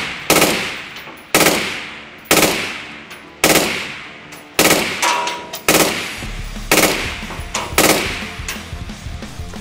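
Suppressed 5.56 NATO AR-15-style rifle firing through a Troy TPRS Kryptos reflex suppressor. The shots come about once a second, each a sharp report with a short ringing tail, about eight in all.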